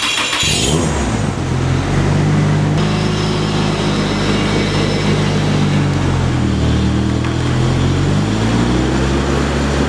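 A car engine running, starting up about half a second in, then holding steady with its pitch rising and falling a few times in the second half as it is revved gently.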